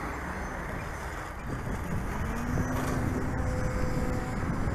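Wind buffeting the microphone, with the faint steady hum of a distant RC plane's motor.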